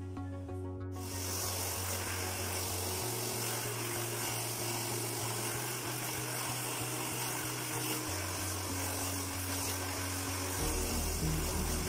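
Electric hair dryer switching on about a second in and blowing steadily, a constant rushing hiss, over background music with slow low notes.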